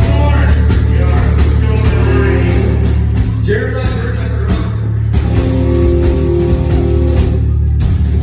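Live rock band playing loudly: distorted electric guitar over heavy bass, with a singer's voice.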